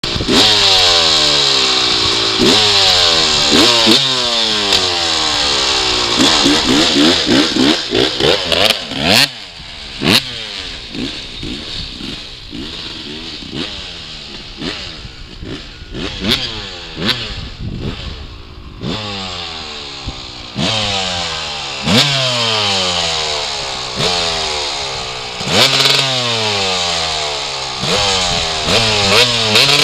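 1998 Yamaha YZ250's single-cylinder two-stroke engine, jetted rich, revved up and let fall back again and again. From about a third of the way in it drops to a quieter, uneven idle with sharp pops for several seconds, then revs repeatedly again and is held high near the end.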